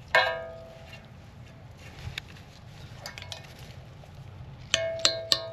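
Hammer striking steel on a front steering knuckle and wheel bearing assembly, the metal ringing after each blow: one loud ringing blow at the start, a few light taps, then a quick series of ringing blows near the end.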